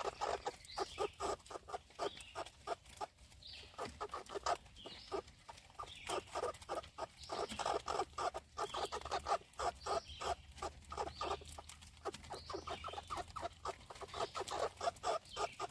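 Animal sounds: a fast, uneven run of short clicks and chatters, with higher bird chirps over them.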